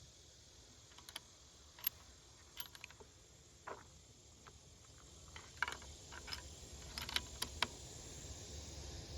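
Faint sharp clicks and light metallic clatters, about ten spread over several seconds, typical of a bolt-action rifle's bolt being worked after a shot: lifted, drawn back to eject the spent case, and pushed home.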